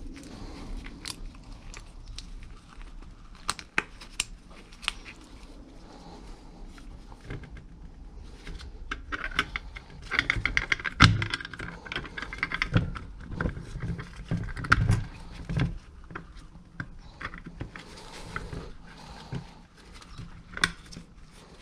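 Small metal clicks, clinks and scrapes of drum brake parts (springs, clips and the adjuster) being handled and fitted onto the shoes on a VW Beetle's rear brake backing plate. There is a busier stretch of knocking and rubbing about halfway through.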